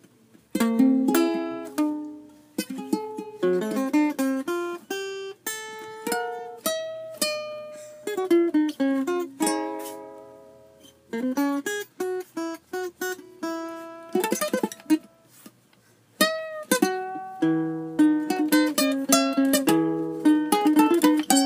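Guitar and ukulele playing an instrumental of plucked notes that ring out and fade, with short pauses at the very start and about two-thirds through.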